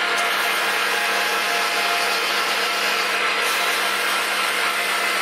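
Metal lathe running steadily, its motor and drive giving an even hum and whine, while abrasive cloth is held against the spinning threaded workpiece to smooth it.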